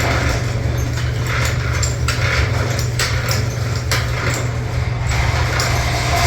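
Irregular light knocks and clicks, like tools and metal parts being handled, over a steady low mechanical hum.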